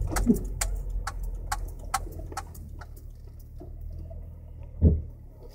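Inside a slowly rolling car: sharp regular clicks about twice a second over a low rumble, dying away after about two and a half seconds, then one loud clunk near the end from the coilover suspension.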